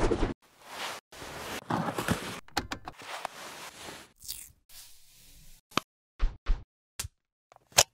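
Packaging and parts being handled: rustling and sliding for the first few seconds, then several separate sharp clicks and knocks.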